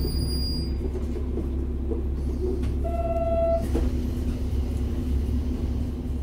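A KiHa 40 8000-series diesel railcar's replacement Komatsu diesel engine idling steadily while the car stands still, as a low hum. About three seconds in, a short beep sounds, followed by a click.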